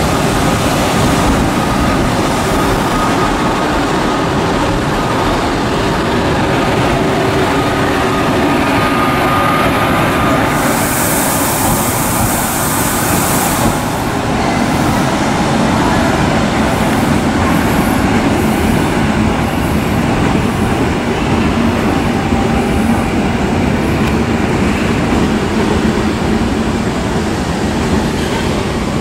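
Electric trains running through a railway station: a loud, steady rolling rumble of wheels on rails, with a burst of high hiss lasting about three seconds near the middle.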